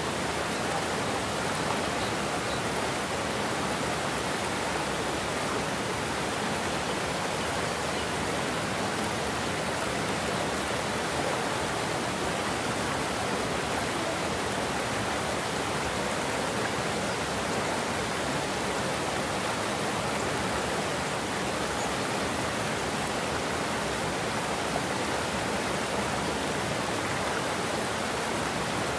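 Water pouring over a low concrete dam into churning white water: a steady, even rush that does not change.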